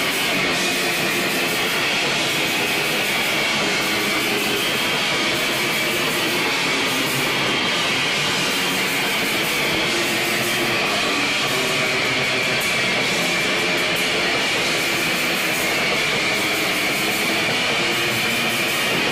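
Heavy metal band playing live: a dense, unbroken wall of distorted electric guitar over drums.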